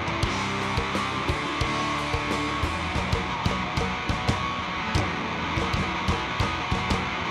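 Live rock band playing an instrumental passage: electric guitar and bass guitar over a steady drum beat.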